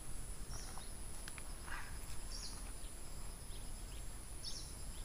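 Short high bird calls about every two seconds over a steady high-pitched insect drone from the scrub forest.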